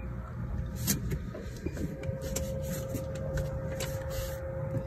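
Steady low hum of a boat motor running, with a thin steady whine that grows stronger about two seconds in, and a few short hissing bursts over it.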